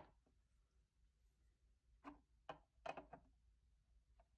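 Near silence broken by short plastic clicks and taps: graded coin slabs being handled. One sharp click comes at the start, and a few quieter taps follow about two to three seconds in.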